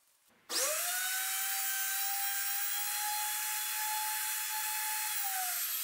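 Handheld router with a bearing-guided rabbeting bit switched on about half a second in: the motor's whine climbs quickly to full speed, then runs at a steady pitch while the bit cuts wood, and falls in pitch near the end as it winds down.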